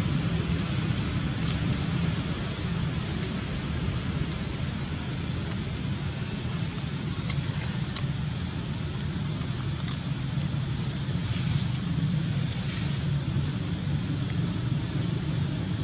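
A steady low rumble of background noise, with a few faint crackles of dry leaves.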